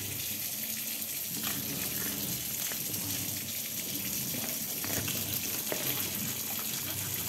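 Kitchen tap running steadily into a stainless steel sink, with a few faint scrapes of a cleaver being worked along a fish's skin to scale it.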